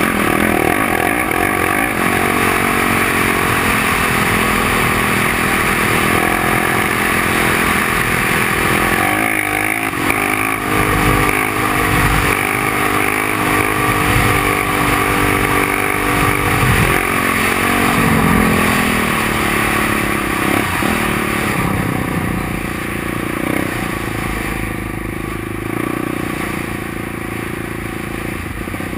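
Yamaha sport quad's engine running hard while riding on sand, its pitch rising and falling with the throttle, clearest between about nine and eighteen seconds in.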